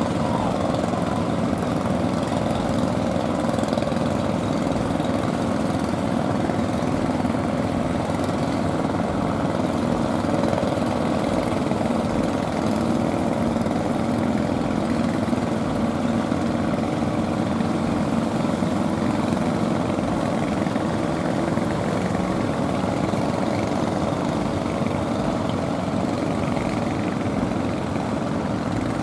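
Engines of several motorized outrigger fishing boats running steadily as the boats move through the surf.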